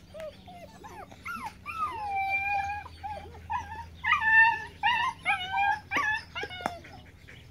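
Eight-week-old puppy yipping and whining in high, falling calls: one long drawn-out whine about two seconds in, then a quick run of short yips from about four seconds.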